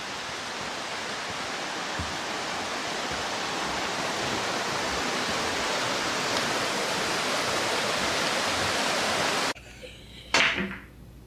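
Steady rushing of running water, slowly growing louder, then cutting off abruptly near the end.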